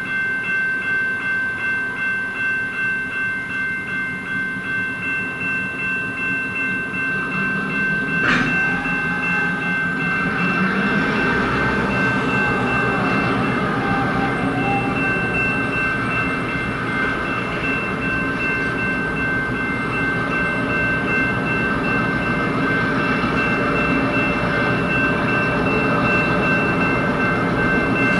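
Level-crossing warning bell ringing steadily, pulsing about twice a second. A sharp click comes about eight seconds in, and from about ten seconds a diesel freight train passes, its engine and wheels adding a loud rumble under the bell.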